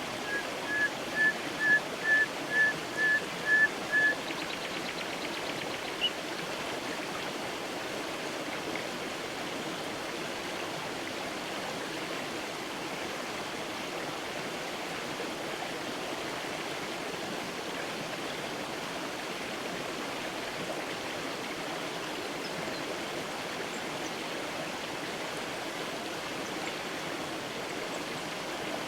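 Creek water running steadily. Over the first four seconds a bird calls a series of about nine short, evenly spaced notes, and a single higher chirp follows about six seconds in.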